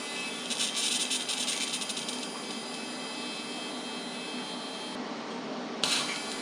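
TIG welding arc buzzing and hissing, crackly for the first couple of seconds and then steady; it breaks off about five seconds in and strikes again with a sharp hiss near the end.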